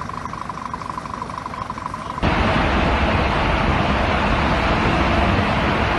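A steady high tone plays for about two seconds. Then a very loud car-mounted air train horn blast sets in suddenly and holds on steadily.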